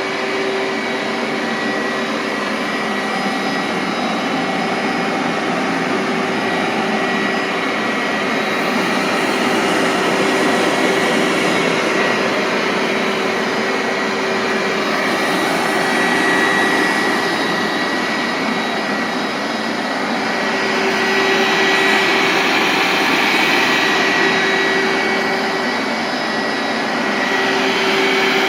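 1999 Hoover SteamVac Widepath carpet extractor running: its suction motor gives a loud, steady rushing drone with a constant low hum and a high whine. The sound swells slightly a few times.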